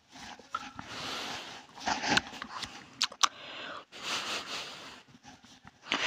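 Heavy breathing after gulping a drink: several noisy breaths in and out, with a few short sharp clicks about two and three seconds in.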